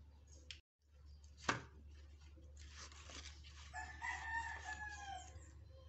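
A rooster crowing once, starting a little past the middle: a held call of nearly two seconds that drops in pitch at its end. Before it, about a second and a half in, comes a single sharp knock, the loudest moment.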